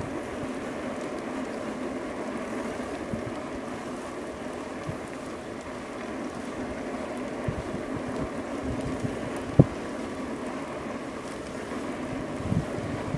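Wind noise on the microphone and rolling road noise from an A2B Metro electric bike riding along a street, with one sharp knock about ten seconds in and a few lighter knocks near the end.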